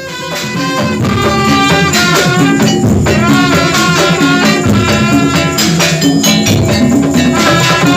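Music with a steady beat, melody and percussion, fading in at the start.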